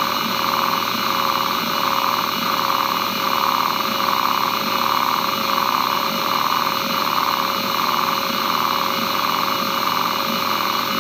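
Western Digital Caviar 22500 hard drive, with a Nidec spindle motor, running a head-seek test: the actuator sweeps the heads back and forth, making a buzzing seek chatter that swells and fades in a regular cycle. Under it runs the steady whine of the 5200 rpm spindle.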